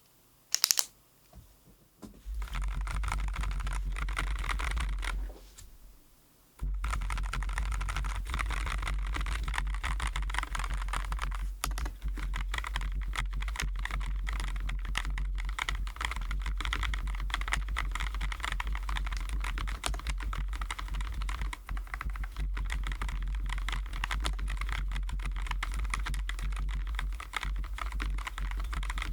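Typing on a Keychron J9 low-profile mechanical keyboard with Keychron Milk POM switches: quick, continuous keystrokes with a short pause about five seconds in. A single sharp click comes about a second in, before the typing starts.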